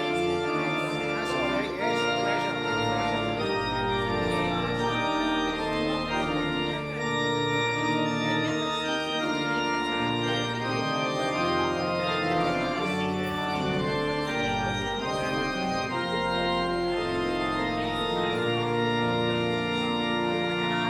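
Church organ playing a closing voluntary at the end of the service: full held chords over moving bass notes.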